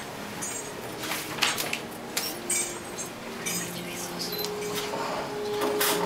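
Metal clinking and jingling: a string of short, sharp clinks, some followed by a brief high ring, the loudest about a second and a half in.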